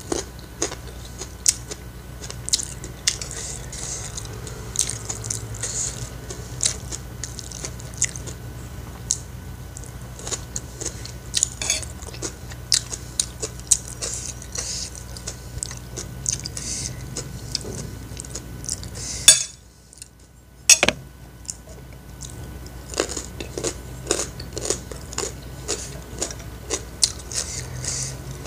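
Close-up eating sounds: a metal spoon clinking and scraping on a plate as fried rice is scooped up, with chewing in between. The sound drops out for about a second and a half about two-thirds of the way in.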